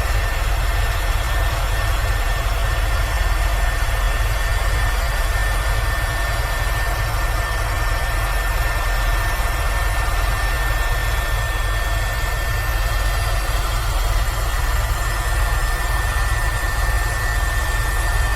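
Airbus H130 (EcoStar) helicopter in flight: steady turbine and rotor noise, a deep low rumble under a wide hiss with one thin, steady high whine.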